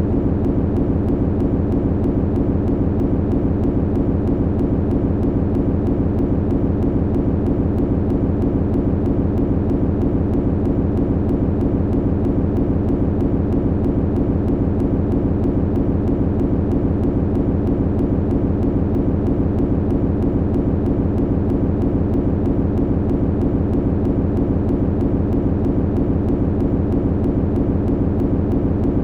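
Machinery humming steadily: a low, even hum with a fast, regular throb.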